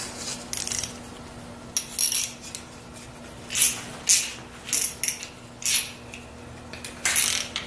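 Band-type piston ring compressor being opened up with its ratchet key: short metallic clicks and rattles of the ratchet and steel band, coming in scattered bunches.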